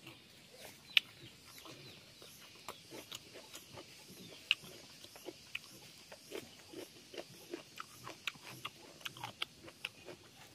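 Mouth sounds of eating: chewing a mouthful of rice and pork, a quick irregular run of wet smacks and clicks, with two sharper ones about a second in and near halfway.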